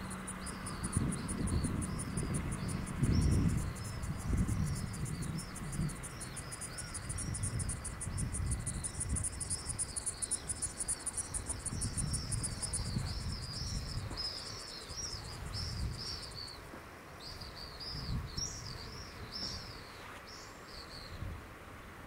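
A grasshopper or cricket-type insect buzzing in a fast, high pulsed trill that fades out about two-thirds of the way through, with a bird singing a string of quick high chirps over it. Gusts of wind rumble on the microphone.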